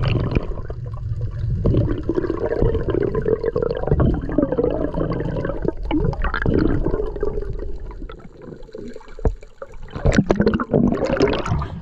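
Underwater sound picked up by an action camera in its waterproof housing: muffled, irregular rushing and gurgling of water moving past the camera, with a few sharper knocks near the end.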